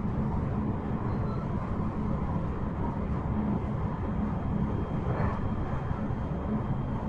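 Onboard running sound of a JR West 223-5000 series electric multiple unit at speed: a steady low rumble of wheels on rail and running gear, with a brief clatter about five seconds in.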